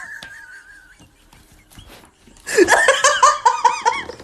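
A person laughing: a burst of quick, repeated rising-and-falling ha-ha syllables that starts about two and a half seconds in, after a thin wavering high note in the first second.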